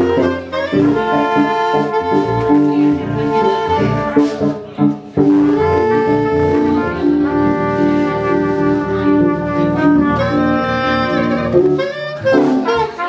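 Jazz-style music led by saxophone and brass playing held notes and chords, with a brief drop in loudness about five seconds in.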